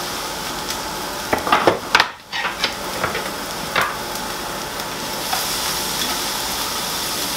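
Chopped red onion and red pepper sizzling in a hot frying pan with broken-up sausage, a steady frying hiss. A few knocks and scrapes of a utensil against the pan come between about one and four seconds in.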